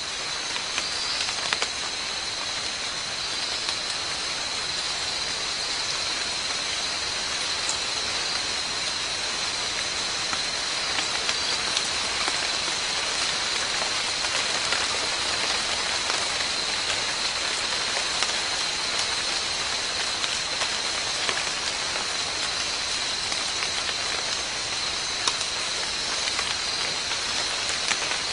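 Steady outdoor background noise: an even hiss with a constant high-pitched whine running through it and a few faint clicks.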